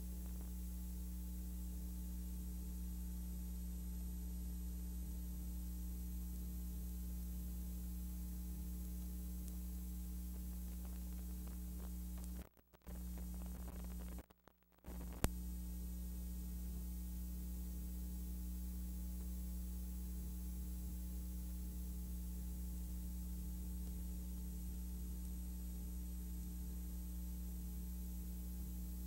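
Steady electrical mains hum with hiss: the bare noise floor of a film shot silent, with no recorded sound. It cuts out twice, briefly, about halfway through, and a single click follows.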